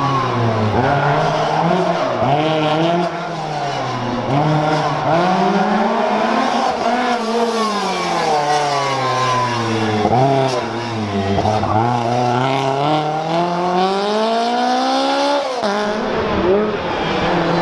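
Lancia 037 rally car's supercharged four-cylinder engine driven hard, its revs climbing and falling again and again as it accelerates, lifts off and changes gear. Near the end a long climb in revs breaks off with a sudden drop.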